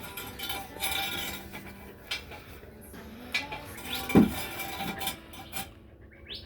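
Scattered metallic clinks and clanks of tools and hardware being handled, with one heavier knock about four seconds in.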